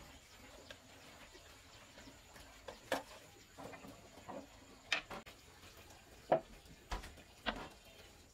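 A few light, irregular wooden knocks and clatters as thin wooden strips are picked up and laid on a planed wooden slab and bench.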